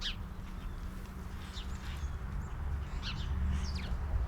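Small songbirds giving several short, high chirps that drop in pitch, over a steady low rumble.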